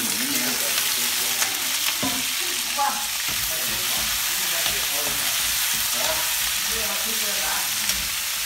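Kaffir lime leaves and dried red chillies sizzling loudly in hot oil in a wok, stirred with a metal ladle.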